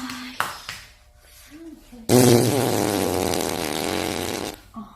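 A long, loud fart of about two and a half seconds, a buzzing, fluttering rumble that starts suddenly about two seconds in. A brief sharp noise comes before it, near the start.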